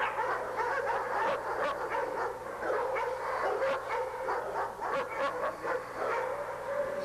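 Large guard dog of German Shepherd type, teeth bared, snarling and barking aggressively without a pause, with a steady growl under a rapid run of sharp barks.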